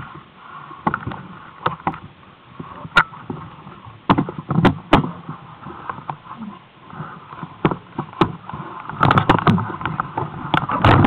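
Mountain bike clattering down a rough, wet trail: irregular knocks and rattles as it jolts over rocks and ruts, coming thicker near the end.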